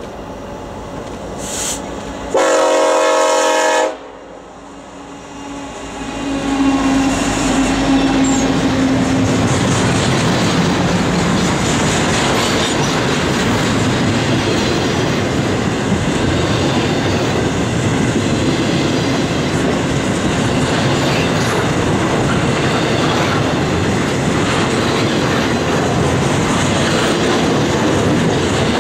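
A diesel freight locomotive's air horn sounds one long blast about two seconds in, a warning for the grade crossing. A few seconds later the locomotives reach the microphone and a double-stack container train rolls past, with steady wheel-on-rail noise and the clickety-clack of wheels over rail joints.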